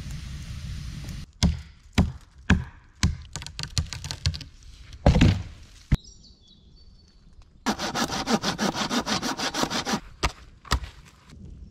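Bushcraft woodwork sounds in quick succession: a string of hard wooden knocks and axe-like chops, one of them much louder than the rest. This is followed by a fast, even run of rasping strokes, about nine a second, and two more knocks near the end.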